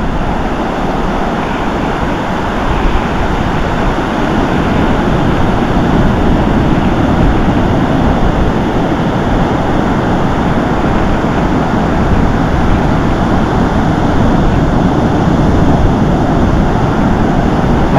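Steady noise of ocean surf breaking and washing up a sandy beach, mixed with wind rumbling on the microphone.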